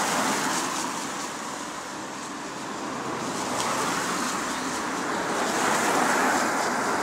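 Road traffic passing on a wet road: tyre hiss swells at the start, eases a couple of seconds in, then builds again toward the end.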